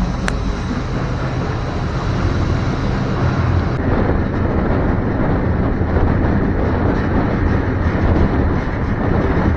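Loud, steady running noise of a freight train heard up close: a continuous low rumble and rattle of wheels on rail and cars in motion.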